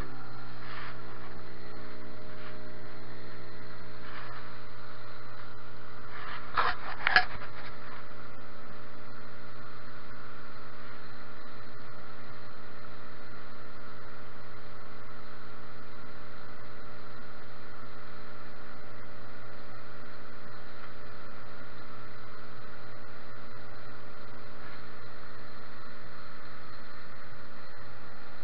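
Tohatsu outboard motor running at a steady cruising speed, its pitch settling just after the start. A couple of sharp knocks come about seven seconds in.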